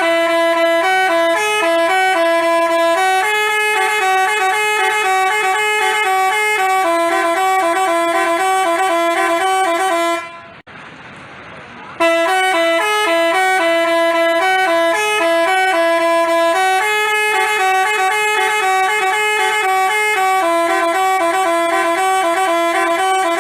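Telolet basuri horn playing a tune of stepping high horn notes. The same phrase of about ten seconds sounds twice, with a short break between.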